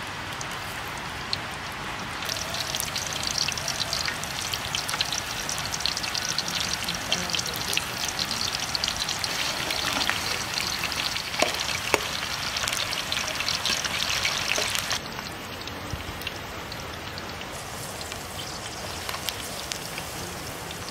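Hot oil sizzling and crackling as sliced onions and spices fry in an aluminium pot, stirred now and then with a metal slotted spoon. The sizzle grows louder about two seconds in and drops back about fifteen seconds in.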